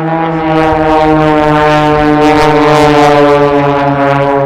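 A formation of Extra 300 propeller-driven aerobatic aircraft flying past, their engines and propellers making a loud, steady drone. The pitch sinks slowly as they pass, and it is loudest about halfway through.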